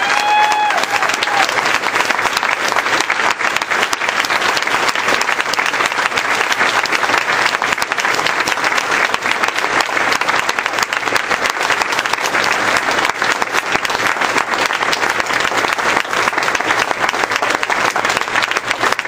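Audience applauding: a long, steady round of clapping from many hands.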